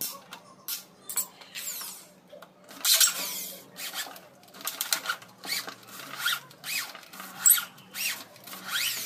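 Corded electric drill run in short trigger bursts into plywood, the motor speeding up and slowing with each pull, with a few sharp clicks near the start.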